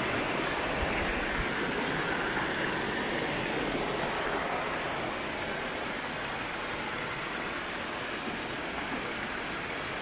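Steady rush of flowing water, an even hiss with no breaks.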